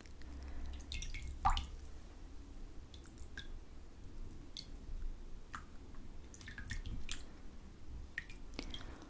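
Wet, slippery hands rubbing and pressing together, making scattered sticky, squelching clicks, with one louder snap about one and a half seconds in.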